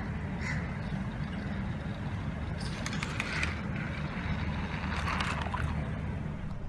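Battery-powered Thomas the Tank Engine toy train whirring and rattling along plastic track over a steady low rumble, then a splash about five seconds in as it runs off the track end into the water.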